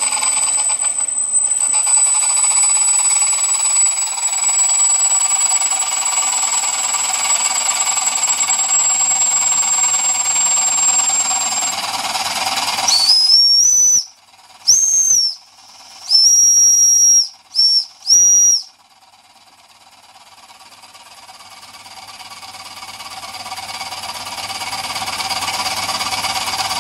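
Jensen 20G toy steam engine running on live steam with a steady hiss. About halfway through, the boiler's steam whistle is blown in five short toots. After that the running sound drops low and builds back up steadily.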